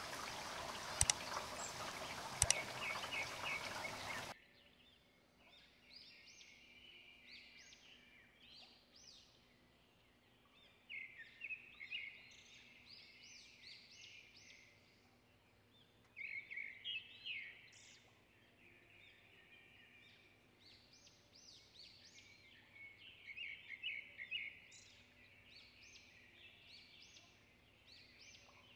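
A steady rushing noise with a few sharp clicks for the first four seconds, then birds singing: many short, high chirping phrases in clusters.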